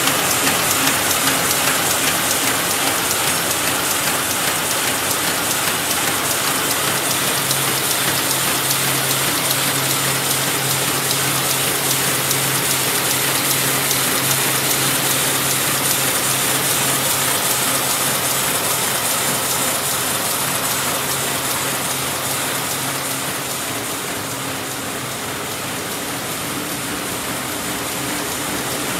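Nova NWFD-350 automatic high-speed square-bottom paper bag machine running at production speed: a dense, fast, even mechanical clatter of rollers and gearing, with a low steady hum through the middle that fades out a few seconds before the end.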